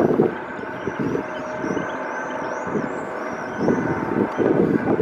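Eurocopter AS365 Dauphin (Dolphin) helicopter's engines and rotor running as it climbs away, a continuous rumble that swells and dips with a thin steady whine above it.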